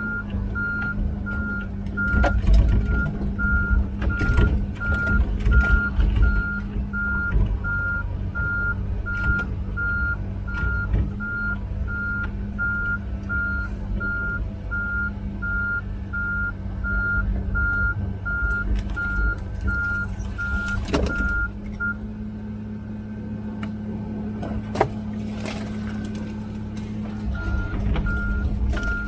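Komatsu PC16 mini excavator tracking along, its travel alarm beeping about twice a second over the steady running of its diesel engine, with scattered clanks. The beeping stops for a few seconds near the end, then starts again.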